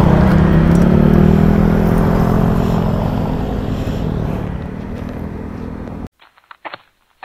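Motor scooter engine running while the scooter coasts and slows, its tone easing down and fading, with wind rushing over the microphone. The sound cuts off abruptly about six seconds in, leaving a few faint clicks.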